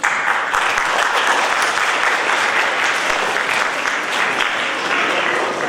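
Audience applauding: many hands clapping that start suddenly and die away near the end.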